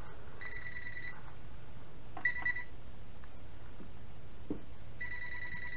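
Voltage tester beeping with a steady high tone, three times, the last beep running on at the end, as it is held to the upper part of a breaker panel: the sign that those parts above the breaker are still live.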